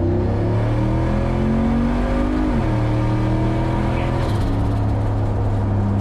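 Boosted LS V8 in an El Camino accelerating, heard from inside the cabin. The engine note climbs, drops with an upshift about two and a half seconds in, climbs again and drops with another upshift past four seconds, then runs on steadily.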